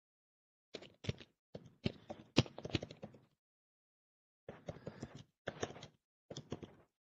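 Computer keyboard typing: quick runs of clicks and taps in two spells of about two and a half seconds each, with a short pause between them.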